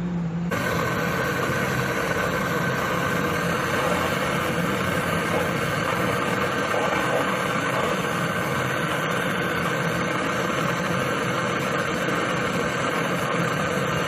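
Gas brazing torch flame hissing steadily while brazing copper refrigerant tubing, beginning about half a second in.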